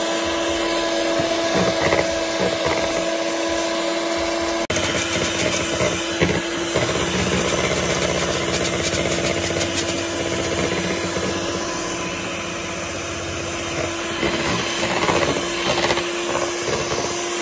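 Electric mixer running steadily at one speed, beating flour into brownie batter.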